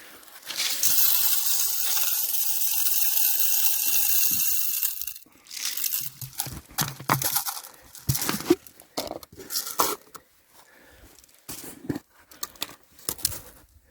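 Birdseed poured from a tobacco can through a plastic bottle-top funnel into a bird feeder: a steady rushing hiss lasting about four and a half seconds. It is followed by scattered clicks and knocks of the can, funnel and feeder being handled.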